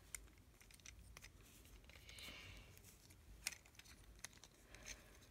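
Faint clicks and small knocks of a plastic transforming toy figure being handled and its parts pushed into place, with one sharper click about three and a half seconds in.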